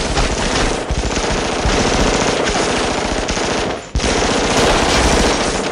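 Sustained rapid gunfire from a movie shootout, shot after shot with hardly a gap, broken by a brief pause just before four seconds in.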